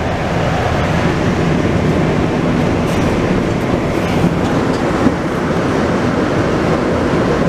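Montreal Metro MR-73 rubber-tyred subway train running, heard from inside the car as a steady rumble and hiss.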